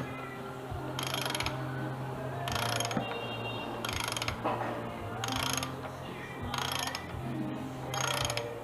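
Ratchet wrench being worked back and forth, a burst of rapid pawl clicks about once a second, over quiet background music.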